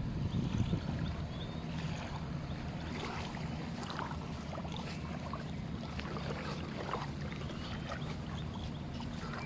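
Boat engine running steadily as a low hum, with scattered light clicks and faint chirps over it.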